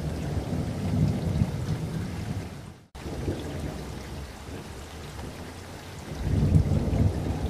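Rain ambience with low rolling thunder. It fades out and cuts off about three seconds in, then starts again more quietly, with the thunder rumble swelling near the end.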